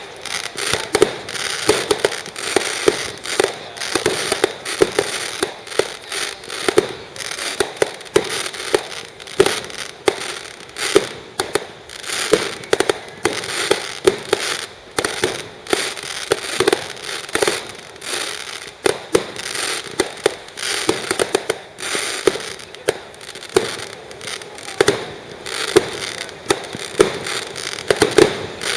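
Fireworks going off: a rapid, continuous barrage of sharp bangs and crackling, several reports a second.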